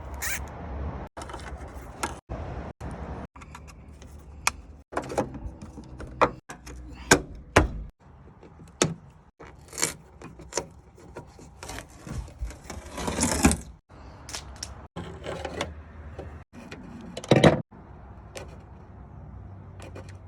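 Hand work on a truck's wiring and fittings: a string of irregular clicks, knocks and short scrapes, several of them sharp and loud, broken up by brief silent gaps.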